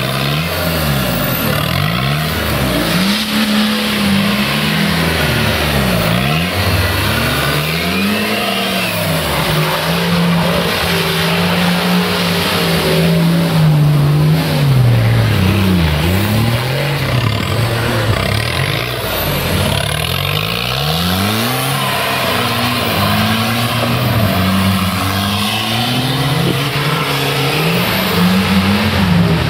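Off-road 4x4's engine revving up and down over and over as it works its wheels through deep mud.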